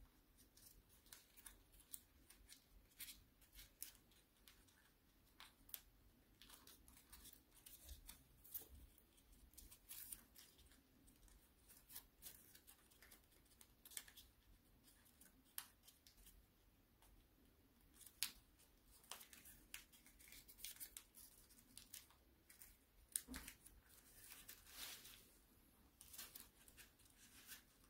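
A sheet of origami paper being folded and creased by hand: faint, crisp paper clicks and short rustles at irregular intervals, with a longer rustle near the end.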